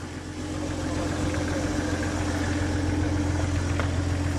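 Nissan Patrol 4x4 engine idling steadily, an even low drone with no revving.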